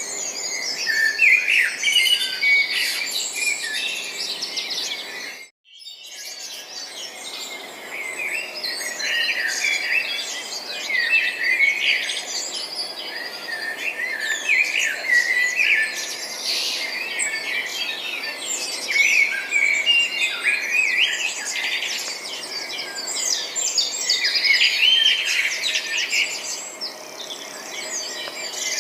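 Small songbirds chirping and twittering, a dense run of short, high overlapping calls. The sound drops out completely for a moment about five and a half seconds in.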